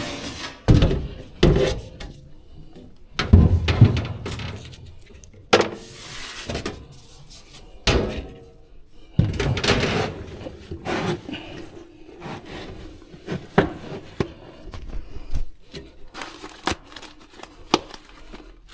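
Irregular knocks, thunks and clatter of things being handled and set down, with a few short scraping or rustling noises between them.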